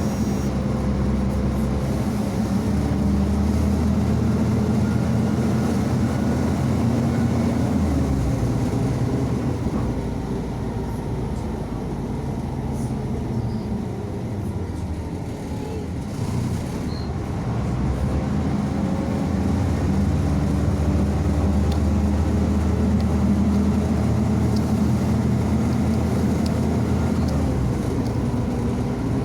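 Diesel engine of a MAZ-105 articulated city bus heard from inside while driving. The engine eases off for several seconds in the middle, then pulls harder again.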